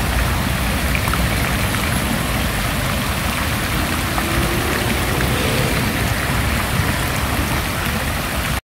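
Fountain jets splashing steadily into a basin, an even hiss of falling water, with a low rumble of city traffic underneath.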